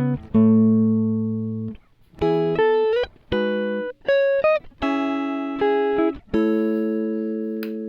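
Background music: a solo guitar playing slow plucked notes and chords, each fading away, a couple of them sliding up in pitch, ending on a long held note.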